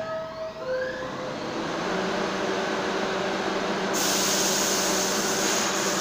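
New York City subway train (R62A cars) at a station: a short two-tone door chime as the doors close, then a steady electrical hum from the train's motors and equipment as it readies to pull out. A high steady hiss joins about four seconds in.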